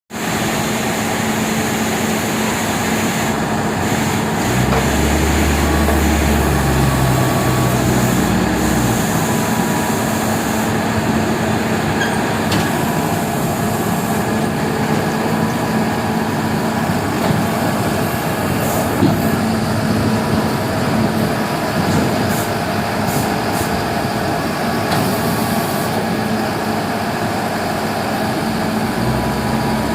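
A heavy engine running steadily, with a deeper hum for a few seconds near the start and a few light clicks.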